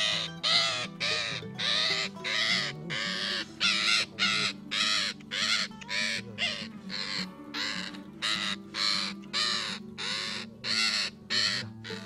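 A freshly trapped parakeet screeching in harsh, repeated squawks, about two a second, as it is held in the hand.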